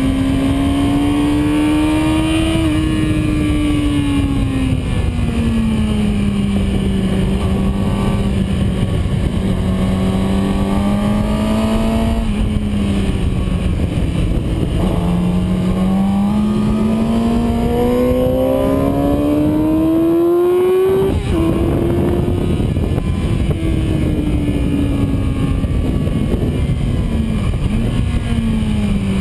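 Yamaha R6 inline-four engine heard onboard at track speed under heavy wind rush, its note climbing slowly under throttle and sagging as the bike slows. About twenty-one seconds in the pitch drops suddenly at a gear change, then keeps falling.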